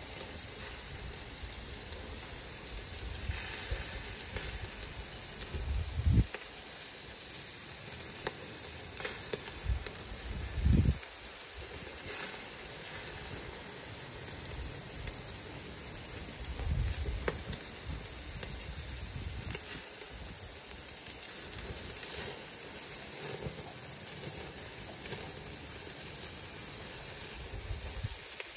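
Pork chops sizzling on a hot grill grate, a steady crackling hiss of fat and juices on the heat. A few short low bumps break in, the loudest about six and eleven seconds in.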